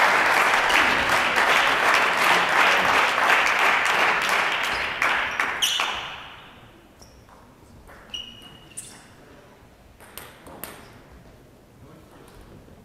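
Spectators applauding after a point, the clapping dying away about six seconds in. Then a few sharp taps, a celluloid table tennis ball being bounced before the serve.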